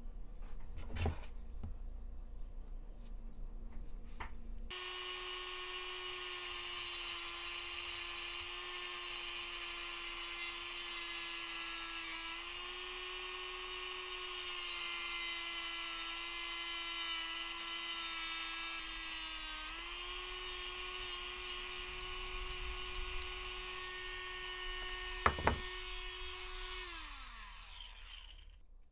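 Rotary tool with a cut-off wheel starting up and running at a steady high whine while it grinds through an engine-mount screw, trimming it about a quarter inch shorter; the grinding comes and goes over the whine. A single sharp knock sounds near the end, and the motor then winds down.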